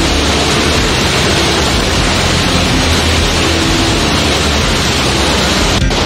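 Loud, steady rushing roar of a large waterfall pounding into the river close by, briefly broken just before the end.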